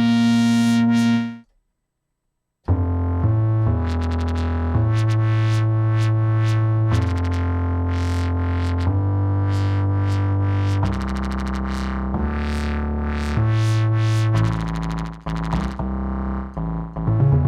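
Synth bass keyboard patch from the East West Ghostwriter sample library being played: a held note dies away about a second in, then after a short gap a run of low bass notes with bright, plucky attacks, each held for one to two seconds. Near the end the sound pulses unevenly.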